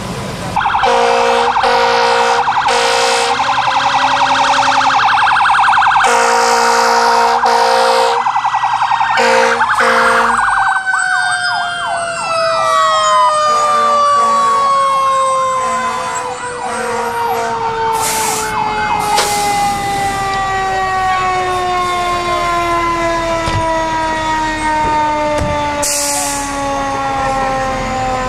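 Fire engine air horns blasting in a run of short and longer blasts, then sirens: a brief fast up-and-down yelp, and a siren whose pitch winds slowly down over the rest of the stretch.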